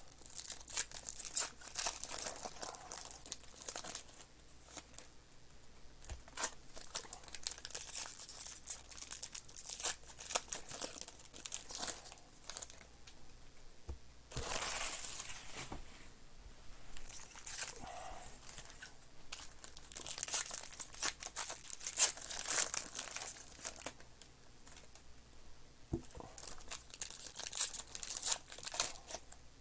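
Trading card pack wrappers being crinkled and torn open and cards being handled, an irregular run of crackles and clicks with louder rustling bursts about 15 seconds in and again around 20 to 23 seconds.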